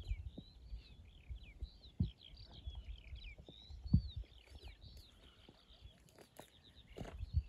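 Songbirds singing in a busy chorus of short chirps and whistles, with a few low thumps and rustles of footsteps in dry grass, the loudest about four seconds in.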